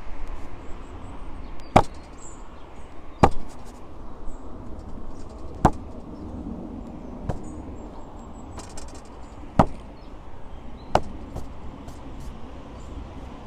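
About six sharp taps or knocks, a second or two apart and irregular, over a steady low background rumble.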